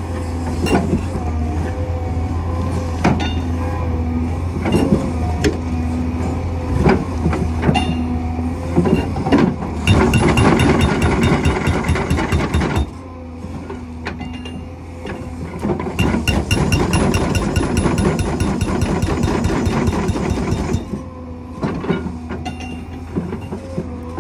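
Cat 385C excavator's diesel engine running under load while its hydraulic hammer (breaker) works into frozen ground. Scattered knocks and clanks come first, then two spells of rapid, even hammer blows, a short one about ten seconds in and a longer one a few seconds later.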